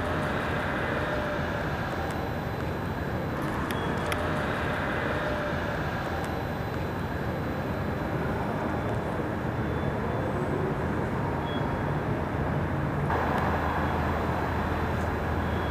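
Steady city street noise: a continuous rumble of traffic with no clear single event.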